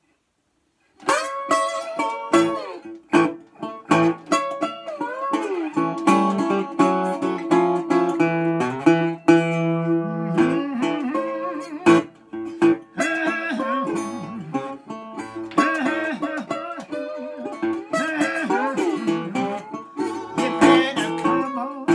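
1929 National Triolian resonator guitar played bottleneck-style with a slide, a slow blues starting about a second in: plucked notes that glide up and down in pitch over a steady low droning note.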